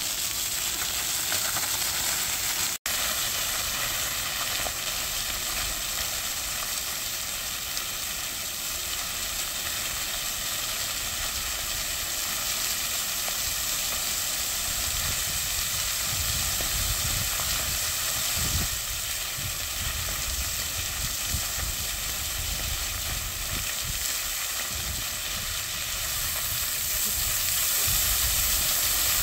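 Fountain water jets spraying up and splashing down onto stone paving, a steady hiss of falling water. It cuts out for an instant about three seconds in and grows a little louder near the end as more jets run.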